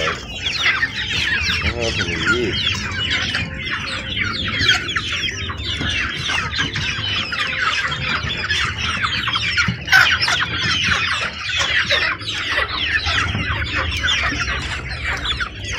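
A flock of young chickens peeping and clucking without a break, many short calls overlapping.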